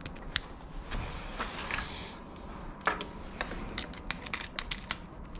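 Irregular light clicks and clatter of small objects being handled, coming more thickly in the second half.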